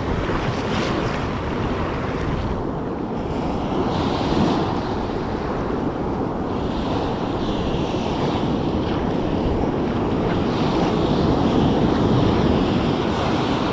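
Ocean surf washing onto a beach in a steady rush that swells and eases, with wind buffeting the microphone.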